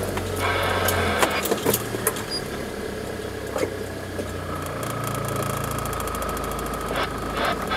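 Vehicle engine running at low speed over a rough dirt track, heard from inside the cab, with sharp knocks and rattles as it goes over bumps. The engine note shifts about halfway through, and a faint steady whine joins it.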